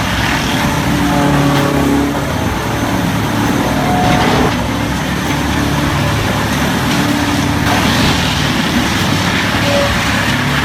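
Heavy wood-processing machinery running: a large engine's steady drone, its pitch shifting every second or two, over a dense mechanical noise.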